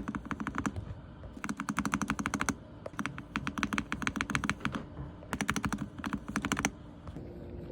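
Keyboard spacebar on a Gateron mechanical switch being tapped rapidly in quick runs of clicks, roughly a dozen presses a second, with short pauses between the runs.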